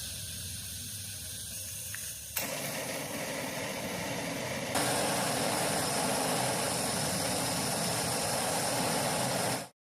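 Steady hissing noise with a low rumble under it. It steps louder twice, about two and a half and five seconds in.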